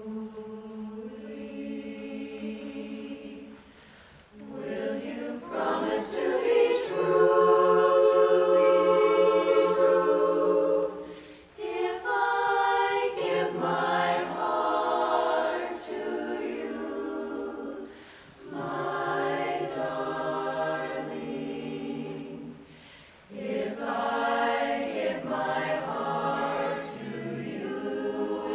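A women's chorus singing a cappella in several parts. It sings in phrases with short breaks between them and is loudest in a held passage about a quarter of the way in.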